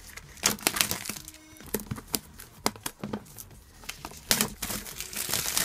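Clear plastic shrink-wrap being peeled off a card box and crumpled by hand: a run of sharp crackles, the loudest clusters about half a second in and again after about four seconds.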